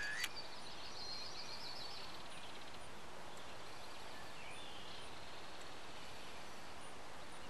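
Steady outdoor ambience of a wooded hillside: an even background hiss, with a bird chirping a quick series of high notes during the first two seconds and a faint call again around the middle. A single short click comes right at the start.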